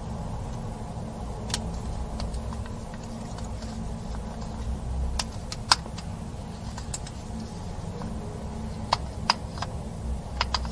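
Slime being worked and mixed by hand, giving scattered sharp sticky clicks and pops, about ten in all with the loudest a little past halfway, over a steady low background hum.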